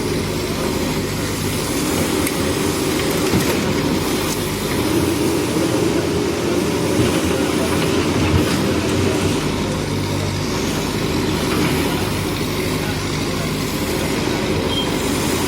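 JCB backhoe loader's diesel engine running steadily as it works loading mud, a continuous low drone.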